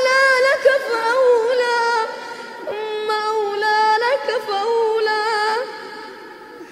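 A high voice singing a slow, ornamented melody in several phrases with wavering pitch, growing faint about a second before the end.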